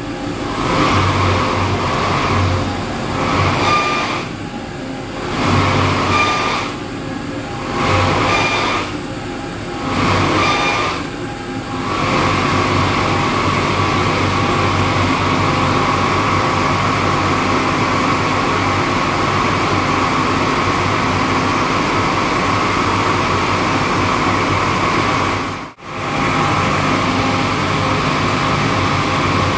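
Trane CVHF centrifugal chiller compressor surging. Its running sound swells and falls about five times, one surge every two to two and a half seconds, each with a low whoosh. From about twelve seconds in it settles into a steady hum. The surging is the sign of refrigerant flow reversing under too much lift, on a machine the owner says has a leak and non-condensables, with humid weather limiting condenser heat rejection.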